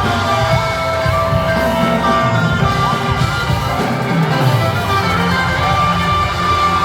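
Live band music with electric guitar, held keyboard-like tones and a steady beat.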